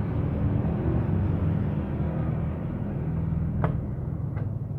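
Steady low rumble, with two light metallic knocks near the end as the left engine side cover is pressed onto the Honda Revo Absolute's crankcase.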